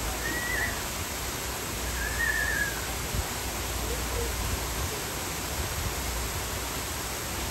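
Steady rushing background noise with two short, high chirps, one about half a second in and one about two seconds in.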